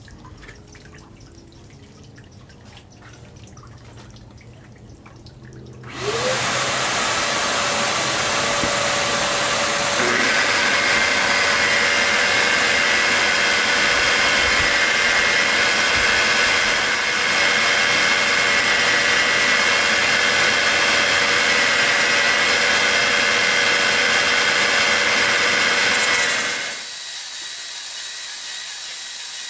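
Bauer polisher set up as a cut-bottle sanding machine switching on about six seconds in, its motor whining up to speed and then running steadily. From about ten seconds a louder gritty grinding with high ringing tones joins in as a cut glass bottle rim is sanded on the aluminum oxide disc. Near the end it drops to a quieter rubbing.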